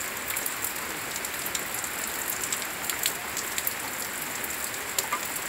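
Steady rain falling, with many separate close drops ticking at irregular moments over the constant hiss.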